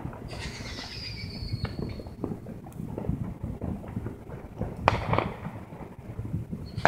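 Fireworks: a high whistle sliding slightly down in pitch for about two seconds, a sharp crack about five seconds in, and another whistle starting right at the end, over a low background rumble.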